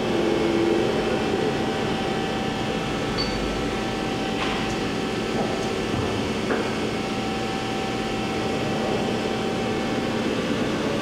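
Johnford ST-40G CNC lathe's geared spindle drive running steadily at low speed in its second gear range, a constant mechanical hum with several steady tones, and a couple of faint clicks around the middle.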